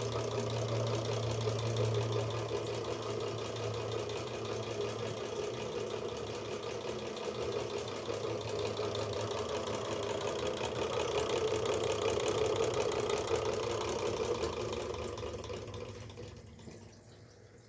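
Motor-driven mechanical carnival light chaser running steadily, its motor humming under a dense mechanical rattle, dying away over the last few seconds.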